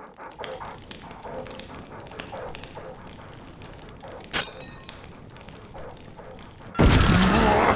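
Campfire crackling with faint scattered pops, a short loud sharp sound with a high ringing edge a little past the middle, then a sudden loud pitched, shifting sound breaking in near the end.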